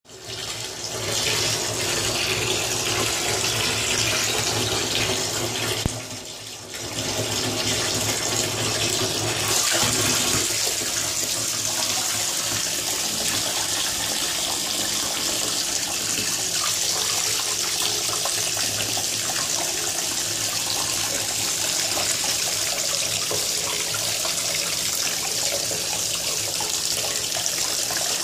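Bath tap running hard, the water pouring through a mesh sieve holding a bubble bar and splashing into a filling, foaming bathtub: a steady rush of water, briefly quieter about six seconds in.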